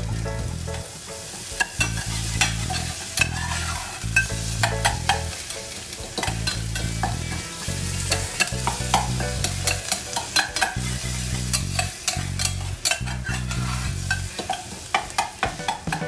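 Chopped vegetables sizzling in a small saucepan while a metal spatula stirs them, scraping and clicking against the pan many times.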